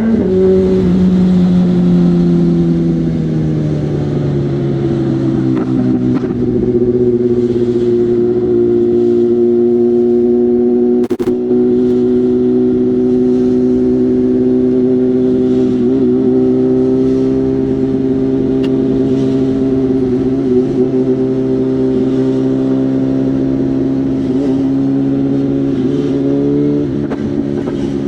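BMW M1000R's inline-four engine running through a genuine SC Project S1 exhaust while riding. The revs fall away over the first few seconds, then hold nearly steady at cruising speed, with a short rise and drop near the end. A single sharp click comes about eleven seconds in.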